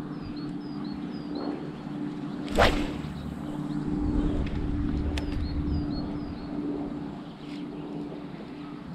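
A Daiwa Prorex X UL spinning rod whips through the air in one sharp swish about two and a half seconds in, casting a lure. A small bird chirps in short runs of high notes near the start and again later.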